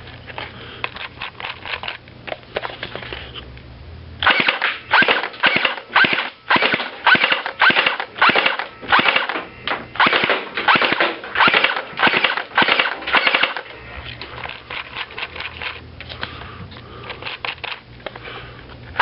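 G&G UMG airsoft electric gun (AEG) firing a long string of sharp shots, about two or three a second, from about four seconds in until about thirteen seconds in. Fainter clicks come before and after the string.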